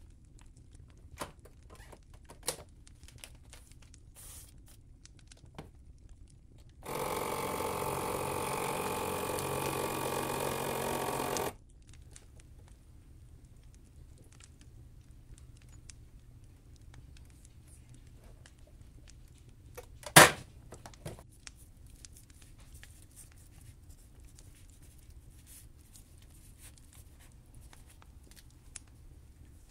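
Countertop vacuum sealer's pump running steadily for about four and a half seconds, drawing the air out of a bag of raw sausages, then stopping abruptly. A few light clicks come before it, and a single sharp, loud click comes well after it.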